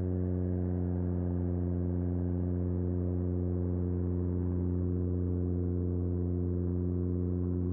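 Super Decathlon's four-cylinder Lycoming engine and propeller running steadily at high power on a takeoff roll, heard as an unchanging drone with a stack of even, low tones.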